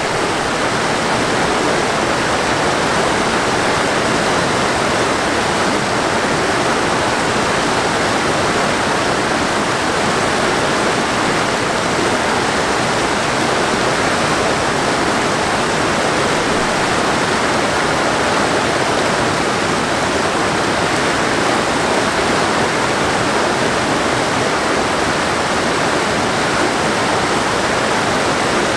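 Steady rush of a mountain lake's outlet stream tumbling over rocks.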